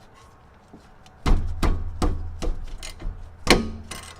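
Sharp knocks and clanks, about six over three seconds starting a little over a second in, the loudest near the end, as a socket wrench is worked on the front brake caliper bolts to break them loose.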